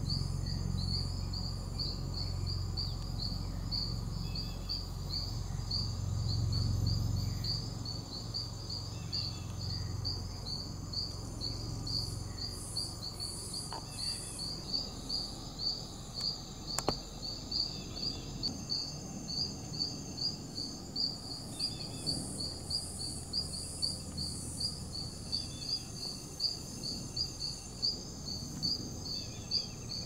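Rainforest insects: a cricket-like insect chirping in a quick, even rhythm of about three chirps a second, over a steady high whine from other insects. A low rumble underneath fades out just past the middle.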